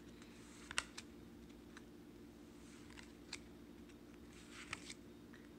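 Pokémon trading cards being flipped through by hand: a handful of faint, short clicks and ticks as cards slide over one another, over a low steady hum.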